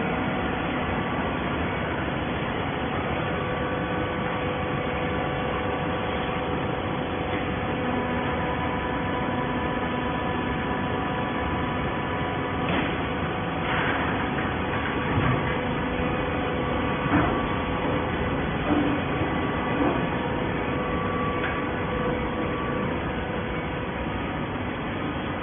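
Hydraulic baler running steadily, a machine hum with several held tones, and a few light knocks around the middle.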